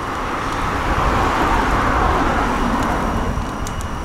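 A car passing on the road: its tyre and engine noise swells about a second in and fades away again, over a steady low rumble of wind and rolling noise.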